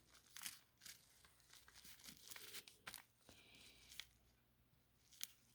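Faint rustling and short light scratches of paper being handled, a few of them sharper, in a small room.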